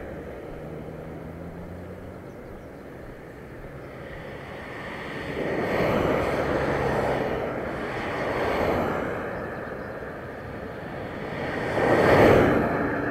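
Road vehicles passing a moving bicycle over a steady rush of wind and road noise. Three pass-bys swell and fade, about six seconds in, around eight and a half seconds, and the loudest near the end.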